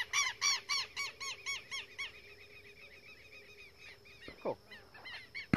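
Southern lapwings (teros) giving rapid, repeated shrill alarm calls, about four or five a second, which stop about two seconds in. Fainter calls come again near the end, followed by a single sharp click.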